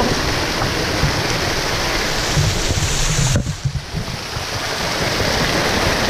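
Waterfall pouring and splashing onto rock close by: a loud, steady rush of falling water, dipping briefly a little past halfway.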